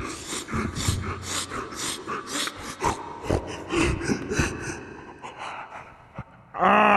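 A man crying: quick, ragged sobbing breaths and sniffs, about three a second, that thin out and grow quieter. Just before the end a loud, drawn-out wail breaks out, sliding slowly down in pitch.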